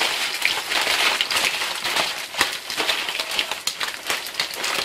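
Plastic bag crinkling and crushed cornflakes crunching as chicken pieces are worked around inside it to coat them, over the crackling sizzle of cornflake-coated chicken nuggets frying in a pan of oil.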